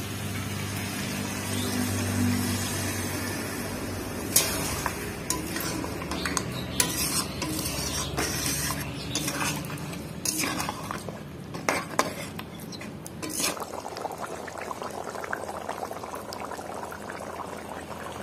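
Mutton stock poured from a steel bowl into a hot kadai of masala-fried mutton, with a steady sizzling hiss, then a steel ladle stirring the curry, clinking and scraping against the metal pan again and again.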